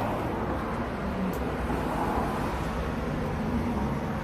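Road traffic going past: a steady low rumble with a hiss of tyre noise.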